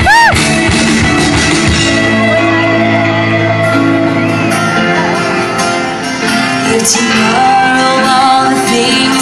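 Live rock band playing amplified through speakers: electric guitars, drums, keyboard and a woman singing into a microphone. A short swooping high tone sounds right at the start.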